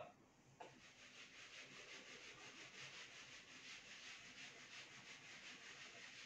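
Faint rhythmic rubbing of a whiteboard being wiped clean, in quick back-and-forth strokes about four a second, starting about half a second in.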